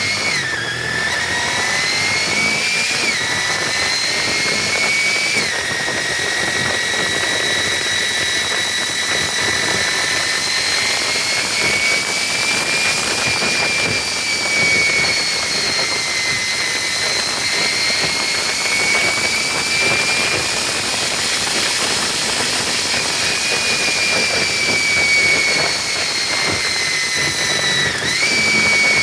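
1998 Honda VFR800F V4 heard from the saddle while riding: a high whine from its gear-driven cams climbs with the revs and drops sharply at each shift, three times in the first six seconds and once near the end, over a steady rush of engine and wind noise.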